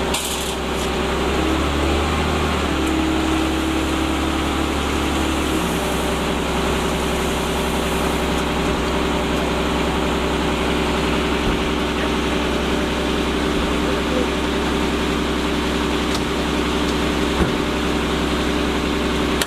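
Fire engine's engine running at a steady speed, a loud continuous drone with a low hum, as when it drives the truck's water pump to feed the hoses. A higher steady tone sits over it for the first five seconds or so, then drops away.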